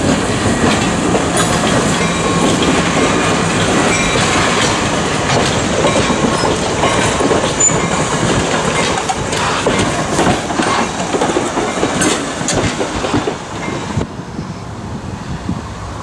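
A train rolling along the track, its wheels clacking over the rail joints in a dense, steady rattle. It falls away near the end.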